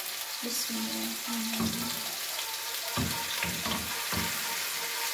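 Oil and garlic-ginger paste sizzling in a frying pan as blended onion-tomato puree is poured in from a blender jug, with a few low soft thumps of the puree landing between about one and a half and four seconds in.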